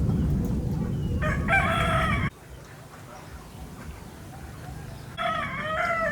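A rooster crowing twice: a short crow about a second in and another starting near the end. Under the first crow a loud low rushing noise stops abruptly about two seconds in.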